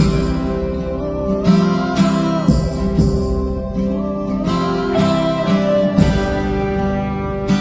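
Background music led by strummed acoustic guitar, with a gliding melody line above the chords.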